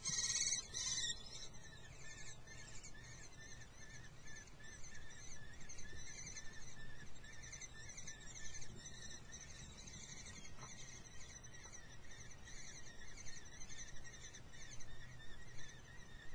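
Common kestrel chicks giving high, wavering begging calls, loud for about the first second and then fainter but continuing: hungry nestlings calling for food.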